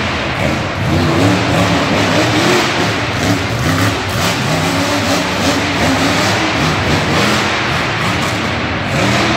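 Monster truck engine revving hard, its pitch climbing and dropping again and again as the truck is driven on and off the throttle.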